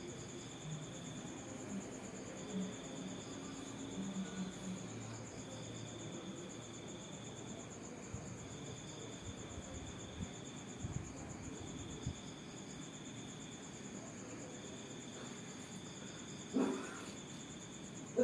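Insects chirping: a steady high trill throughout, with a second, lower chirping call repeating in phrases about every second and a half. A brief louder sound comes near the end.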